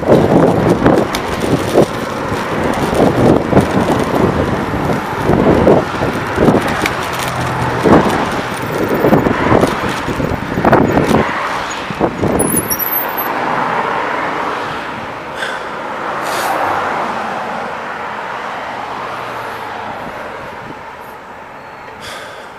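Wind buffeting the microphone of a bicycle-mounted camera while riding alongside car traffic. About halfway the gusts die away as the bike stops, leaving quieter traffic noise with a car passing.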